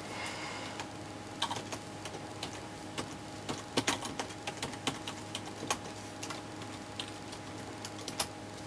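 Typing on a computer keyboard: irregular key clicks, a few closely spaced, over a steady low hum.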